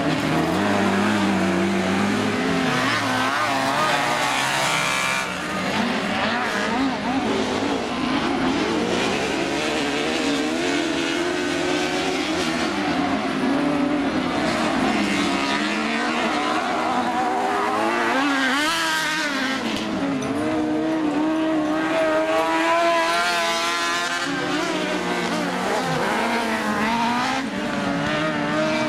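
Engines of several single-seater autocross buggies revving up and easing off as they race round a dirt track. Their pitch keeps rising and falling, with more than one engine heard at once.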